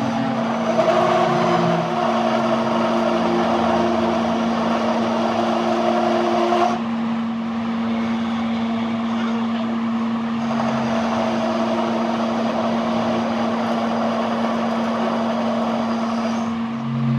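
A steady mechanical hum from running machinery, holding one pitch throughout. A higher part of the sound cuts out about seven seconds in and comes back a few seconds later.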